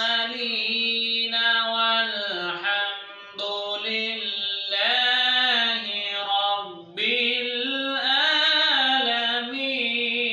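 A man's voice reciting the Quran in the melodic, chanted style of tilawat, holding long notes that slide up and down, with two short pauses between phrases.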